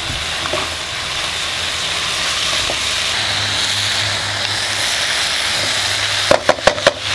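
Chayote, chayote shoots and chicken sizzling steadily as they are stir-fried and stirred in a hot pan. Near the end come four quick knocks.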